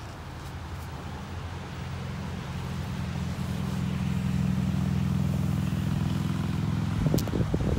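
Vehicle engine running as it rolls slowly along, a low hum that grows louder over the first few seconds. A brief cluster of knocks or thumps comes near the end.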